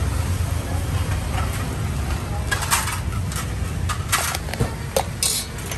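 Dishes and utensils clinking and knocking several times over a steady low rumble, with the clinks bunched in the second half.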